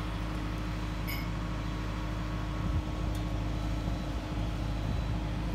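Skid-steer loader's engine running at a steady speed, an even low hum.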